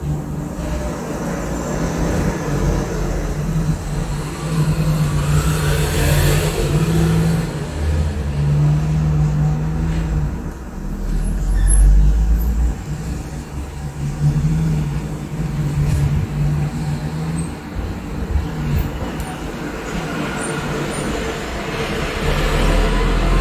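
Continuous low rumble of motor-vehicle traffic, with an engine drone that comes and goes and swells about halfway through.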